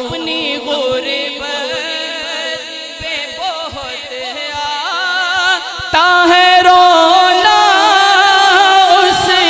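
A male voice singing a naat into a microphone in long drawn-out, ornamented notes that waver and glide in pitch. It grows louder and higher about six seconds in.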